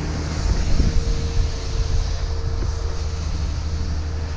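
An engine running steadily at idle, a low even rumble with a faint constant whine over it. A couple of light knocks come about a second in.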